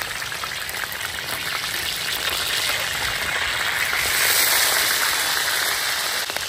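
Fish steaks frying in a pool of oil on a large flat tawa: a steady crackling sizzle that swells about four seconds in, when a metal spatula turns one of the pieces.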